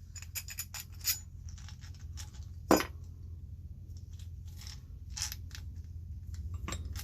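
Small metal parts of a dismantled air compressor clicking and clinking as they are handled, with one sharper knock about two and a half seconds in, over a low steady hum.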